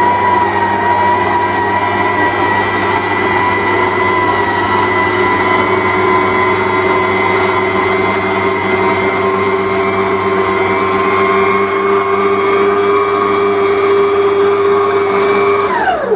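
Electric stand mixer motor running steadily with a whine, its flat beater turning through mashed boiled cassava in a stainless steel bowl. Near the end the motor is switched off and its pitch falls quickly as it winds down.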